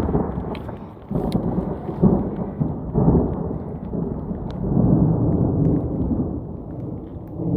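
Close thunder rolling overhead: a long low rumble that swells and fades in several waves.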